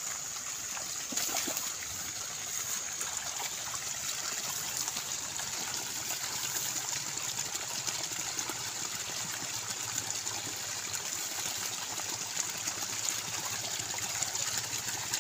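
A small spout of water falling into a shallow ditch pool with a steady splashing trickle, and now and then a splash from hands working in the muddy water.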